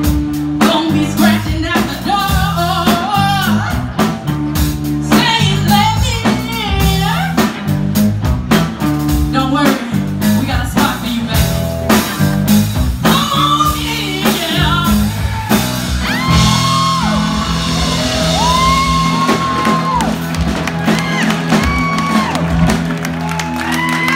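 Live blues band playing a song: lead vocals over electric guitar, bass guitar and drum kit. The voice bends through the melody for the first half, then long notes are held through the second half.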